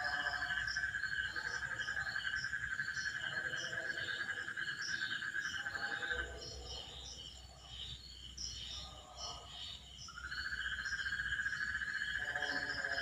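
Nighttime chorus of crickets and frogs: a steady high trill that drops out for about four seconds in the middle, with quick repeated chirps above it.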